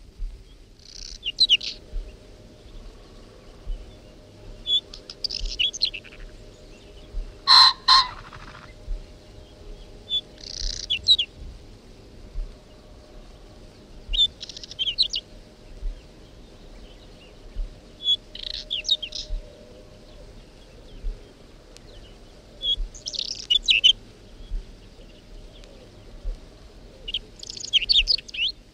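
Whinchat singing: short scratchy, twittering song phrases, about seven of them, each around a second long and roughly four seconds apart. A loud double knock sounds once, about a quarter of the way through.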